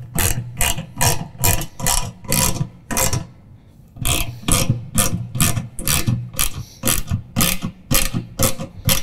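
Half-inch ratchet wrench clicking in quick back-and-forth strokes, about two to three a second, as it tightens nuts onto bolts and lock washers. The strokes stop for about a second near the middle, then resume.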